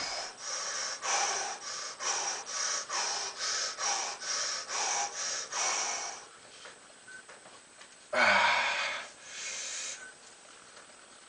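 A man breathing hard under the strain of a painful shoulder stretch: quick, sharp breaths about two a second for six seconds, then a louder long exhale with a falling groan about eight seconds in, and a fainter breath near ten seconds.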